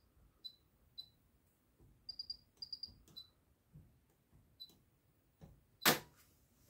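AEG Lavamat washing machine's control panel beeping as it is operated: short high beeps, some single and some in quick runs of three, then a loud sharp click about six seconds in.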